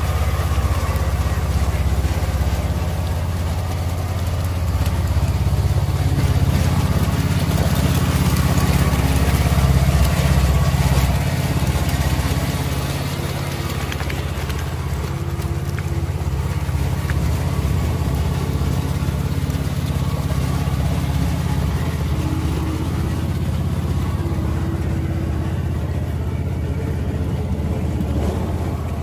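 All-terrain vehicle engine running steadily, swelling a little about eight to eleven seconds in and then settling back.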